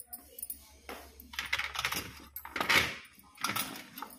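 Dry tamarind pieces rustling and rattling against a stainless-steel mixer jar as they are pushed into it, in several short bursts.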